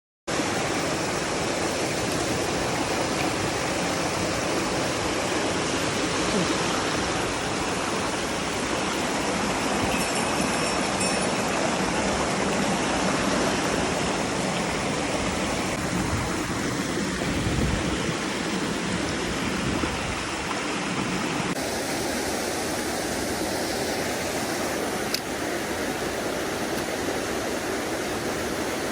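Rushing water of a mountain stream: a steady, unbroken wash of flowing water over rocks. The sound shifts slightly, a little quieter, about two-thirds of the way through.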